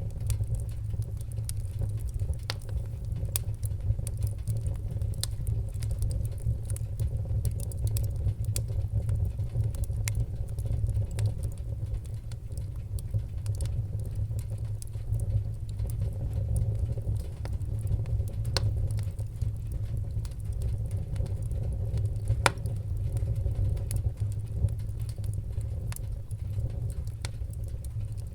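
Wood-burning fire crackling, with frequent small irregular pops over a steady low rumble of the flames; one louder pop about three-quarters of the way through.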